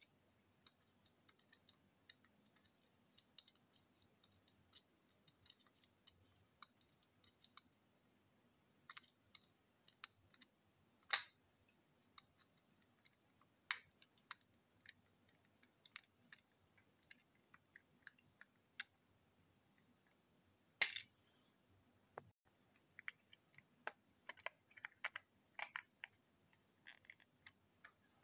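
Faint, scattered small clicks and taps of a precision screwdriver on a tiny screw and the plastic coupling parts of a toy train engine as they are worked by hand; two sharper clicks stand out about eleven and twenty-one seconds in.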